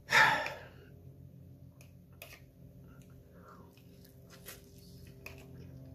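Person eating hot instant ramen noodles with a fork: a loud slurp right at the start, then quieter chewing with a few small clicks.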